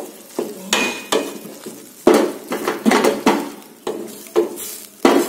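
Wooden spatula stirring and scraping frying spice paste around a stainless steel pan, with irregular knocks against the pan and a light sizzle.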